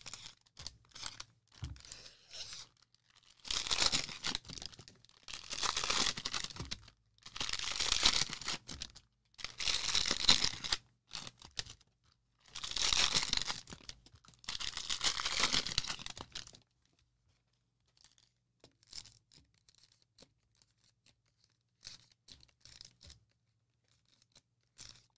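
Cellophane wrappers of Mosaic football card cello packs being torn open, about six long rips one after another, then light rustling and clicks as the cards are handled.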